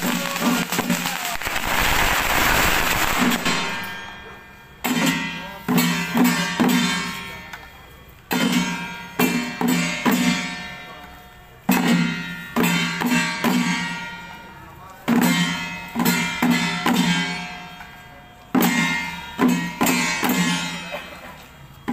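Ritual percussion of a Taiwanese xiaofa troupe, led by handheld wooden-framed drums, played in repeating phrases: a loud ringing stroke about every three and a half seconds, each followed by a run of quicker strokes that fade. The first few seconds are a dense noisy wash before the rhythm begins.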